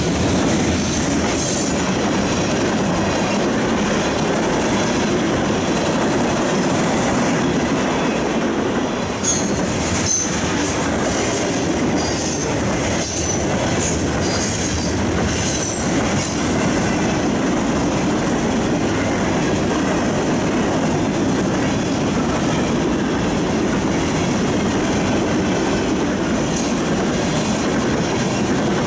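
Freight train cars, covered hoppers and then tank cars, rolling past at speed: a steady rumble and clatter of steel wheels on the rails. High-pitched wheel squeals come and go, most often around the middle.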